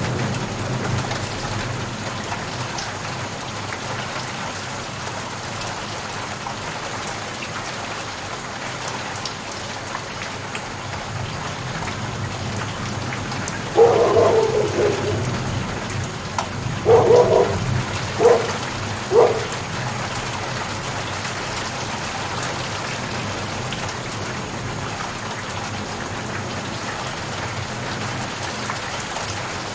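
Steady rain falling. About halfway through, a dog barks four times in a few seconds.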